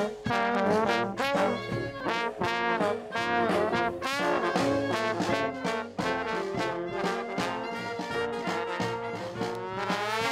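Brass band playing a tune, two trombones loudest, with a bass drum keeping a steady beat underneath.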